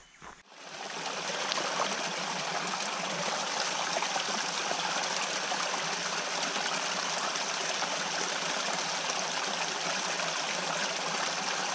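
A stream running steadily, a constant rush of water that comes in within the first second and then holds even.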